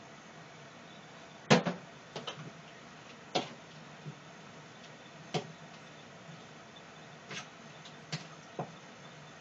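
Scattered sharp clicks and knocks, about nine in all, the loudest about one and a half seconds in: a metal spoon and seasoning containers knocking against a plastic mixing bowl and the counter while seasonings are added.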